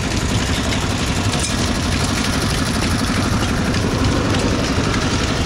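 Large International Harvester horizontal stationary gas engine running slowly and steadily.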